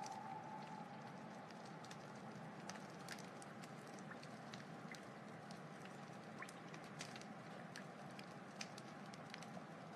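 Wood fire crackling: a steady soft hiss with scattered sharp pops and snaps of burning wood. A faint steady tone at the start fades out about a second in.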